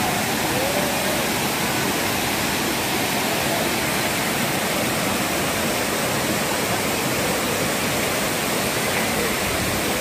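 Steady rush of a tall, multi-tiered waterfall pouring over rock ledges, an even roar of falling water with no change in level.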